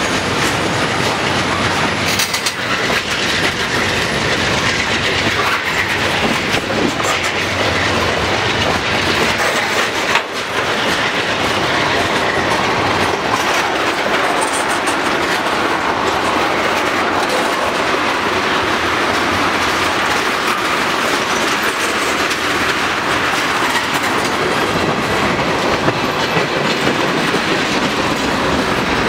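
Freight cars of a long manifest train rolling past close by, a loud, steady rush of steel wheels on rail with rapid clicks as the wheels cross the rail joints.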